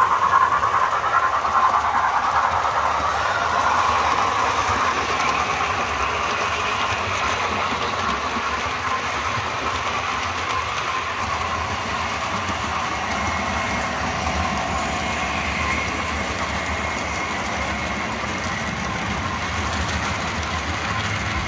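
Model railway trains running along the layout track, a steady mechanical running noise, loudest in the first few seconds as the model steam locomotive passes close by and then evening out.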